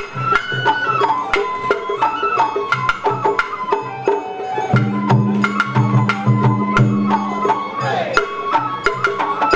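Live Japanese festival float music (Sawara-bayashi): a bamboo flute plays the melody over steady drum beats. A low held note joins for a few seconds midway, and the melody slides downward near the end.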